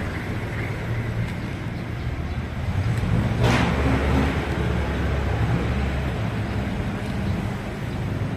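Rusi RFI 175 motorcycle engine running steadily, with a brief sharp noise about three and a half seconds in.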